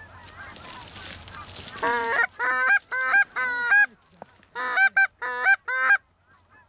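Goose honks: four in quick succession about two seconds in, then three more after a short pause. Each is a loud two-note honk that breaks upward from a low start.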